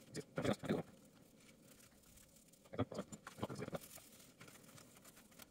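A makeup brush loaded with black wash dabbing onto playmat-foam pieces: two short runs of quick soft taps, one right at the start and another about three seconds in.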